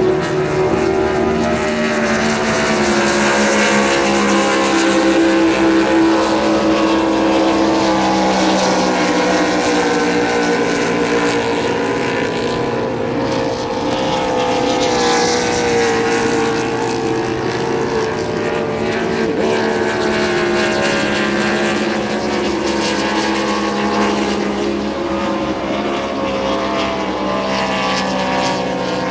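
Supercharged 6-litre race boat engines running hard at racing speed, several engine notes heard at once and drifting slowly in pitch as the boats run the course.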